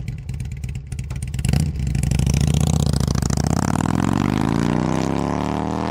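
Motorcycle engine running with a steady pulse, then accelerating from about two seconds in, its pitch climbing steadily.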